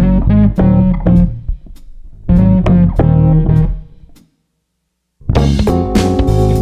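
Background music on guitar and bass guitar, plucked in a steady rhythm. It drops out for about a second just past the middle, then comes back fuller, with drums.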